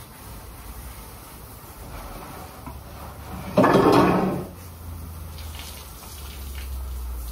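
Pressure-washer water spray on a glass tabletop and patio furniture, with a loud rush of spray about three and a half seconds in that lasts about a second, over a steady low hum.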